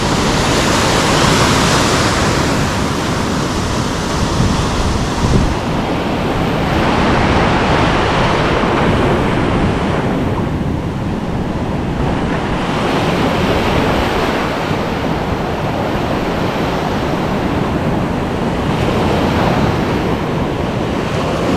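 Ocean surf breaking and washing on a beach, rising and easing in surges of several seconds, with wind buffeting the microphone.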